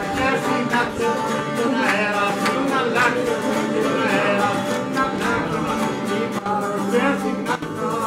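Greek island folk dance music played on violin and laouto (long-necked lute), with plucked strings prominent.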